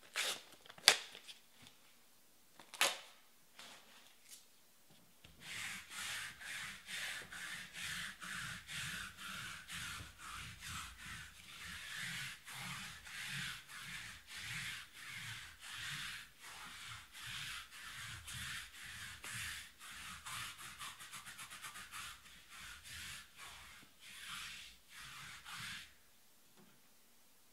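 A few sharp clicks, the loudest about a second in, then a long run of rhythmic rubbing strokes, about two a second and briefly quicker near the middle, that stops suddenly near the end.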